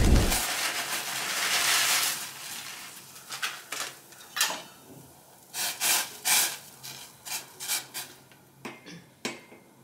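A rush of noise as dry noodles are tipped from their plastic packet into a steel pot of boiling water. Then a utensil is stirred in the pot, knocking and scraping irregularly against the steel sides about a dozen times.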